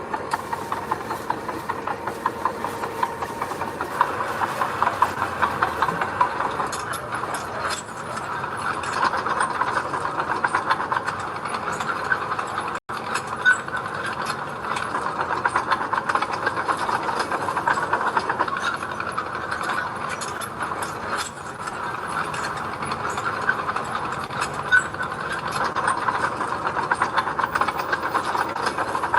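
Crawler bulldozer working: the diesel engine runs under load while the steel tracks clatter steadily with rapid clanking. The sound breaks off for an instant about halfway through.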